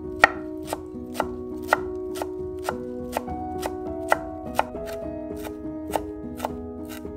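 Large kitchen knife finely chopping fresh parsley on a wooden cutting board: steady knocks of the blade striking the board, about two a second.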